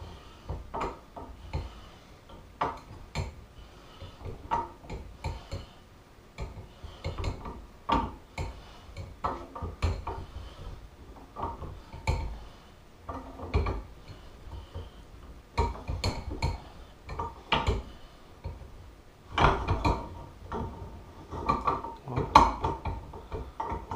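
Irregular metal-on-metal clinks and knocks of a homemade fork tool turning a threaded fitting into a BSA Victor Special fork leg, some with a short metallic ring, the loudest cluster coming near the end.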